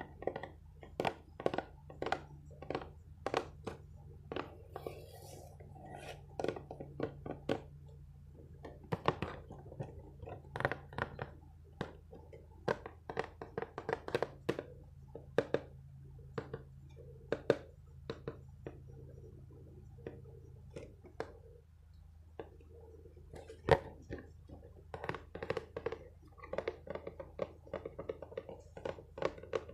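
ASMR tapping on small objects: quick, irregular taps and clicks, several a second, with a short lull about two-thirds of the way through and one louder knock soon after.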